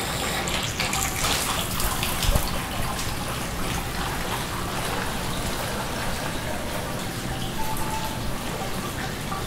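Water jets of a pedal-pumped hydraulophone spraying and splattering steadily, with a few faint notes from the instrument near the end as fingers press on the jets.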